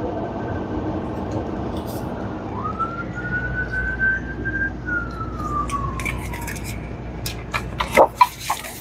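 Steady hum of an FBD frozen beverage (Slurpee) machine running, with a single tone that rises, holds for about two seconds and then slowly falls, like a distant siren. Near the end come a quick run of sharp clicks and knocks, the loudest sounds.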